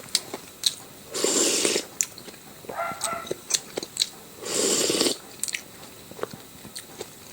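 A person eating close to the microphone: chewing with small wet mouth clicks, and two louder noisy bites or slurps of under a second each, about a second in and again near five seconds.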